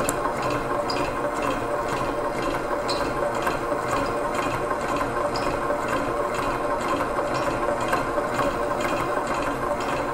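Innofood KT7600 stand mixer running steadily at speed 6, its silicone beater creaming butter and sugar in the bowl: a continuous motor hum with the churning of the mixture.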